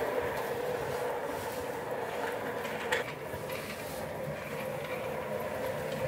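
Office chair casters rolling steadily along a hard corridor floor, a continuous rumble with one sharp knock about three seconds in.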